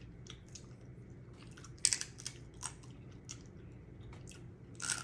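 Close-miked eating of steamed blue crab: scattered sharp cracks and crunches of shell being broken and picked, mixed with chewing, the loudest crack about two seconds in and another near the end.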